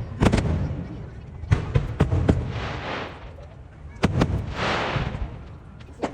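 Aerial fireworks shells bursting in a string of sharp booms, with two stretches of crackling hiss from the shells' glitter effects in between. The sound is sped up by double-speed playback.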